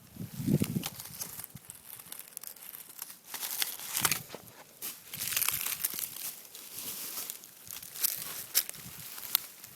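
Rustling, crinkling noise with many scattered sharp clicks and crackles, after a brief low thump at the start.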